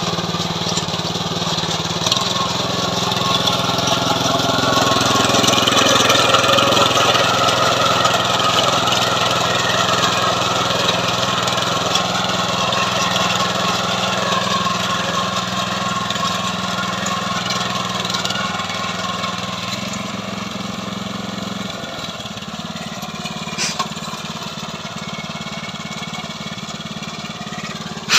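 Small engine of a KB-365 mini tiller running steadily. Its note shifts about three-quarters of the way through, and there are a couple of brief knocks near the end.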